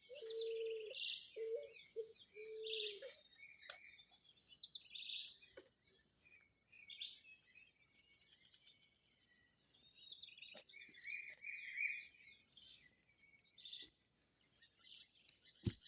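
Dawn chorus of many birds chirping and calling over a steady high-pitched insect drone. A run of low, even hooting notes sounds in the first three seconds, and a sharp knock sounds near the end.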